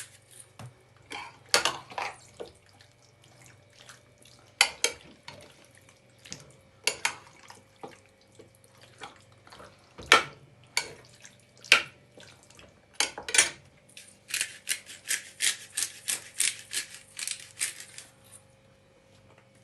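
Hands mixing raw chicken wings in an oily marinade in a bowl: irregular wet slaps and squelches, coming faster in a quick run near the end.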